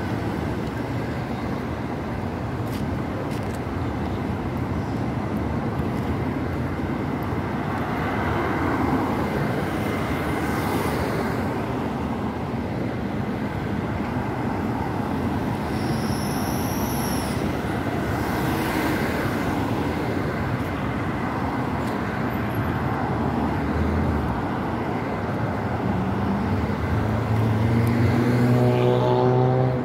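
Steady road traffic: cars and vans passing close by, with a constant wash of tyre and engine noise. Near the end one engine's hum grows louder, and a brief high whistle cuts through about halfway.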